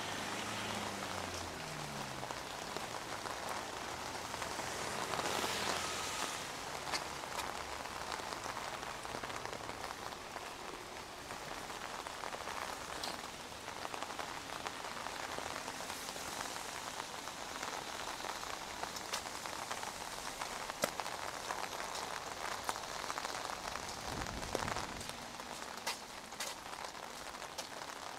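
Steady rain falling on a wet street and pavement, with single close drops ticking here and there, and a brief swell about five seconds in.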